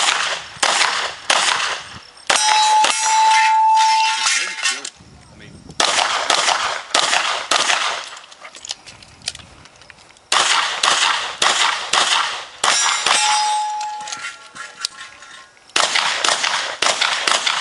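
Smith & Wesson 610 revolver firing in four rapid strings of shots, with short pauses between the strings for reloading. Steel targets ring after hits, twice with a long ringing tone.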